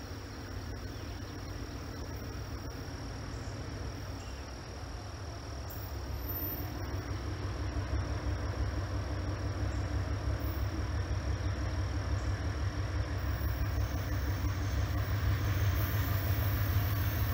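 GE B36-7 diesel locomotive's 16-cylinder engine working hard as it pulls a train of loaded boxcars up a grade, a low rumble that grows steadily louder from about six seconds in as it approaches around the curve.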